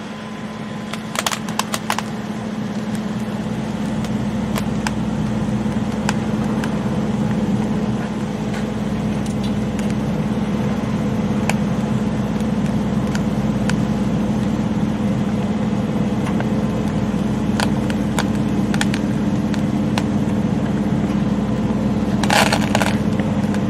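A machine's engine running steadily, getting louder over the first several seconds, with scattered sharp clicks and knocks, a cluster of them about a second in and another near the end.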